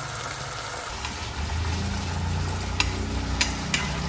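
Minced meat and tomato sauce sizzling gently in a nonstick frying pan on low heat. A low steady hum comes in about a second and a half in. In the second half there are three sharp taps of chopsticks against the pan as it is stirred.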